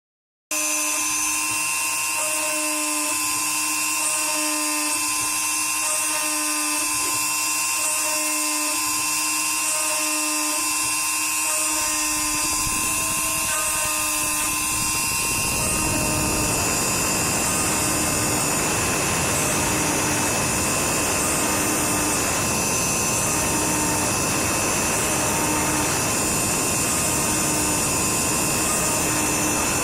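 Homemade CNC machine built from old printer parts running, with a steady high whine and a faint pulsing under it. About halfway through, the sound turns rougher and noisier.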